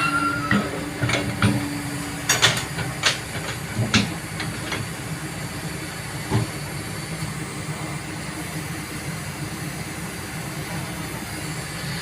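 Kobelco hydraulic excavator's diesel engine running steadily, with about a dozen sharp knocks and clanks in the first six seconds, then steady running only.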